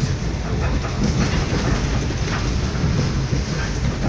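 Passenger train running at speed, heard from inside the carriage: a steady rumble of wheels on the rails with a few faint clicks.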